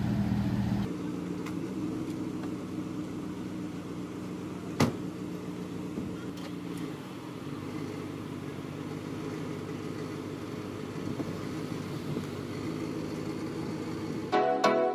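Chevrolet Silverado pickup truck's engine running with a steady low hum as it sits and then pulls away, with a single sharp knock of a door shutting about five seconds in. Music comes in just before the end.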